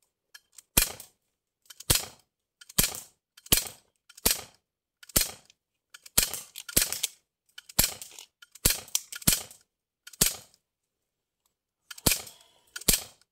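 CO2 BB pistol firing about fourteen sharp shots, roughly one a second, with a pause of nearly two seconds near the end. The shooter thinks the CO2 is running low, weakened by the cold.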